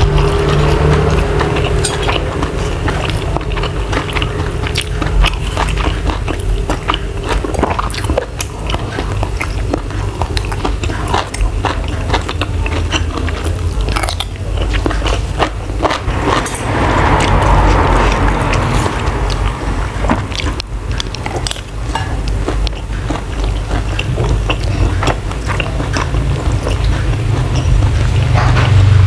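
Close-miked chewing of a mouthful of rice and shrimp stir-fried with holy basil, full of small wet clicks and smacks. Now and then a spoon and fork work through the food on the plate.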